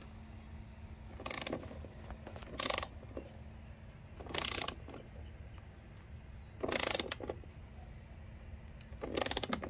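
Ratchet head of a torque wrench clicking as it is worked on a roof-rail bolt: five short bursts of rapid clicks about two and a half seconds apart.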